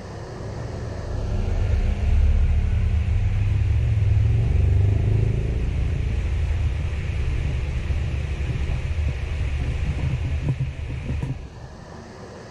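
Low rumbling motor running, swelling up over the first two seconds and cutting off suddenly about eleven seconds in.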